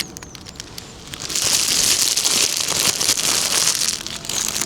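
Plastic bag crinkling as it is handled: a few light clicks, then about three seconds of loud, hissy rustling starting about a second in.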